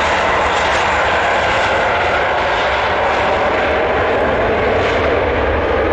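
Twin jet engines of an Airbus A320-family airliner rolling on the runway, a loud, steady roar.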